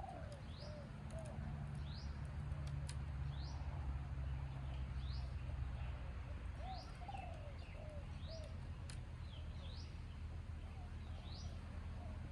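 Faint background birdsong: a small bird repeats a short, high, rising chirp about once a second, while a dove coos softly in short runs of low notes. A steady low hum sits underneath.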